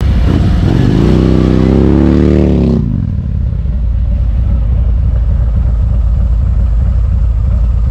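Harley-Davidson motorcycle V-twin engine revving, its pitch rising and falling, for nearly three seconds. The sound then switches suddenly to a steady low rumble of the bike under way.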